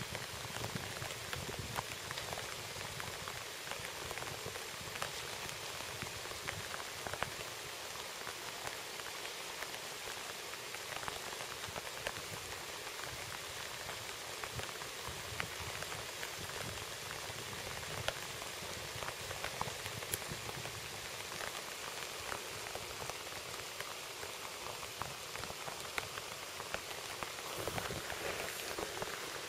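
Heavy rain falling on pond water and marsh plants: a steady hiss packed with small drop ticks.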